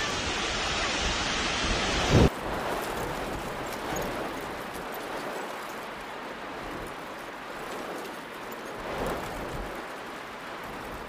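Heavy rain pouring down in a windy storm, a steady hiss of water. About two seconds in it cuts to a quieter, softer stretch of rain.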